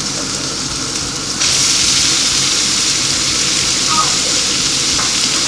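Beef strips frying in a very hot pan, with a steady sizzle that suddenly grows louder about a second and a half in.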